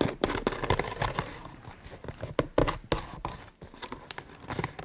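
Cardboard box being handled and torn at by hand, with rustling, tearing and many short knocks and scrapes.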